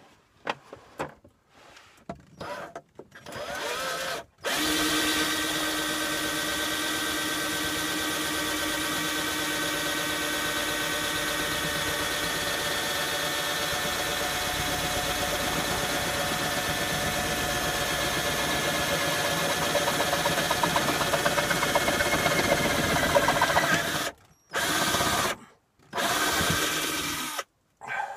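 Cordless drill with a small bit boring a pilot hole up through a wooden cabinet and the cargo van's roof. It gives a few short bursts, then one long steady run of about twenty seconds, then two more short bursts near the end.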